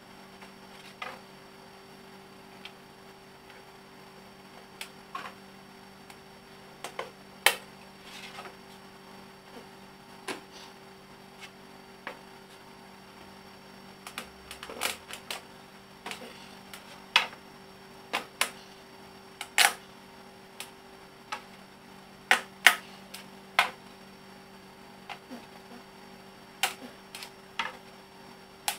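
Curved wooden leg pieces knocking and clicking against each other and the wooden tabletop as they are fitted together by hand into an interlocking joint: irregular sharp wooden knocks, a few louder than the rest, over a steady low electrical hum.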